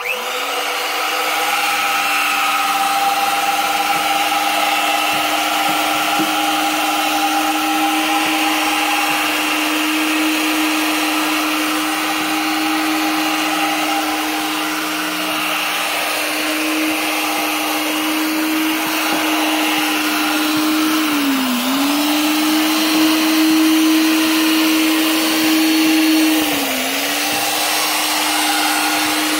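Drill motor driving the Power Krawl stair climber's chain-driven gearbox and rubber tracks in reverse, taking the machine down concrete stairs: a steady motor whine, with the pitch dipping briefly twice as the motor bogs under load, about two-thirds of the way through and again near the end.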